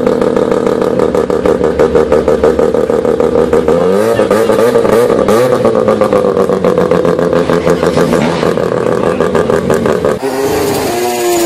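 Mazda RX-7's rotary engine held at high revs during a burnout, a steady high engine note whose revs dip and rise a few times about four to five and a half seconds in. About ten seconds in the sound cuts to another car's engine revving up and down in quick sweeps.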